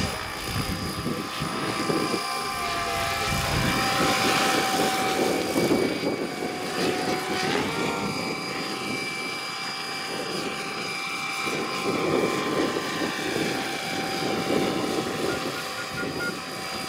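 Electric RC scale Hughes MD500 model helicopter in flight: a steady whine from its electric drive over the churn of its spinning rotor blades. It grows louder about four seconds in as it passes closer, then eases off.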